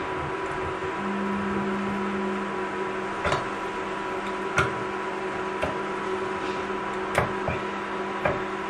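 Hand-held can opener being worked around a tin can, giving several sharp clicks spread irregularly through the second half. Under it runs a steady electrical hum, and a lower tone joins the hum about a second in.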